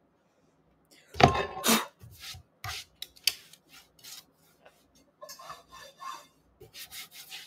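A large nonstick frying pan lifted off a portable countertop cooktop with a clunk about a second in, followed by a run of small knocks and rubbing, scraping noises as the cooktop's surface is wiped clean.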